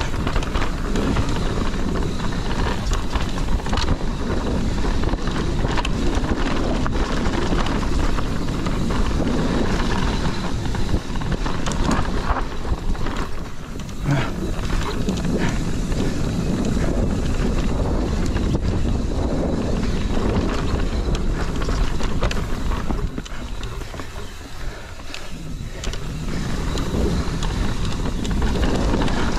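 Mountain bike descending a dirt trail: tyres rolling and skittering over dirt and rocks, the bike rattling over bumps, with wind rushing on the body-mounted camera's microphone. A few sharp knocks stand out about twelve and fourteen seconds in, and the noise eases for a few seconds near the end before picking up again.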